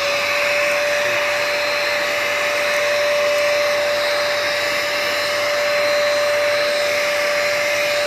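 Eureka Forbes Super Clean vacuum cleaner running at steady full speed, a high whine over rushing suction air, as its floor nozzle is pushed back and forth over a carpet.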